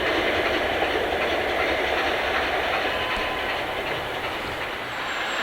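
A passing train: coaches running over the track with a steady rumble and clatter of wheels on the rails, easing off slightly near the end.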